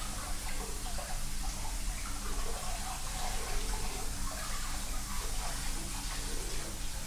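Water running steadily from a tap, an even rushing sound with no let-up.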